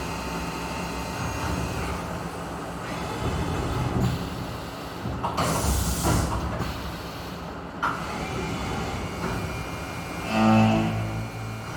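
UGINT UT650 vertical machining center running through a cutting job, a steady mechanical din. A burst of hissing comes about halfway through, and near the end there is a brief, louder low hum that lasts about a second.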